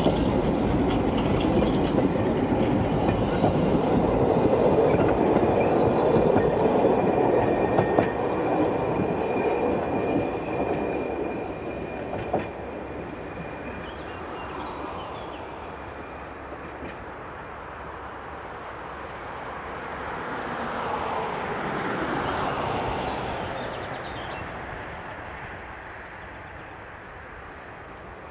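Narrow-gauge train's wagons rolling past on the rails with a clattering run and a thin wheel squeal, then fading as the train draws away. About three-quarters through, a broad noise swells and fades once.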